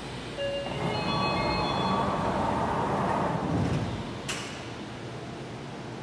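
A Tokyu 3000-series commuter train's doors and the platform screen doors slide shut, with short chime tones over a rising, rushing noise. A single sharp clunk comes about four seconds in as they close, followed by a quieter, steady rumble.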